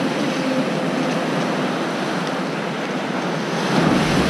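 Surf washing up a sandy beach: a steady rush of foamy water sliding over the sand.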